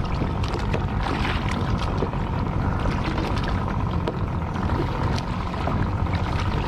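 Steady outdoor rumble of wind and sea water around a kayak, with scattered light splashes and knocks.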